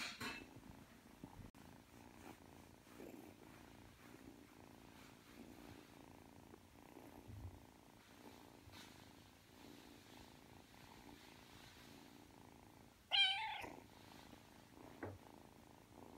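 Three-month-old Ragdoll kitten purring steadily while its belly is stroked. Near the end there is one short, loud meow.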